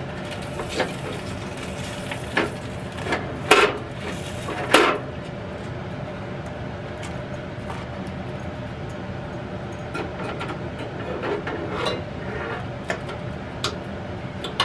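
Metal tongs clinking and scraping inside a stainless countertop electric smoker as crumpled aluminium foil and then the wire rack are lifted out. Scattered sharp clinks, the loudest about five seconds in, then lighter clicks and scrapes near the end.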